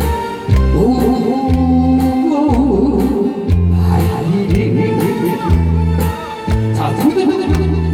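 Upbeat backing music with a steady bass-and-drum beat and a wavering melody line over it.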